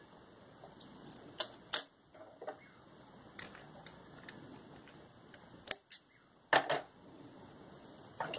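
Scattered sharp clicks and snips from small fly-tying tools handled close to the microphone, with scissors cutting the tying thread as the fly is finished. The loudest are a close pair of snaps about six and a half seconds in.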